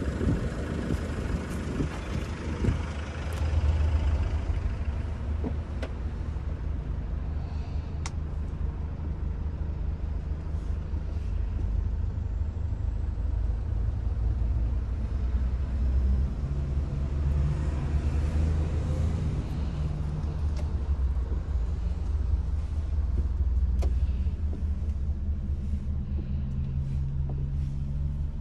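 A steady low rumble, like a van's diesel engine idling, with a few light clicks and knocks from the phone being handled.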